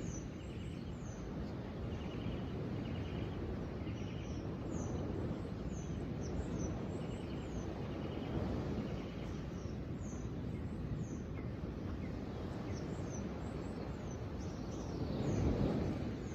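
Small birds chirping in short, high, falling notes, scattered all through, with a few faint trills, over a steady outdoor rushing noise that swells near the end.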